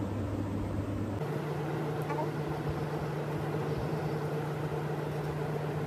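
A steady low mechanical hum with no speech; its pitch steps up abruptly about a second in.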